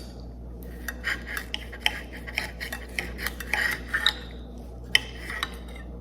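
Knife and fork clicking and scraping against a plate while cutting into a cooked bone-in pork chop. There is a quick run of small clinks and scrapes from about half a second in until about five and a half seconds in.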